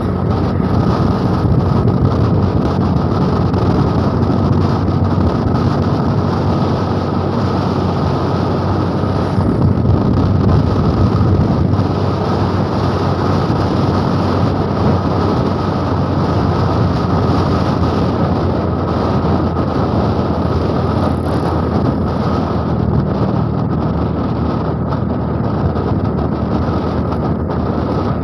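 A motor scooter ridden at speed: a steady rush of wind and road noise with the scooter's engine beneath, and trucks passing close alongside.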